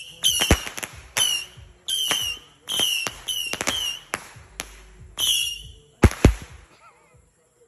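Consumer firework cake (a 25-shot "Missile Base") firing shot after shot, about two a second. Each shot is a sharp bang followed by a brief whistling tone. Two last bangs come close together about six seconds in, then the firing stops.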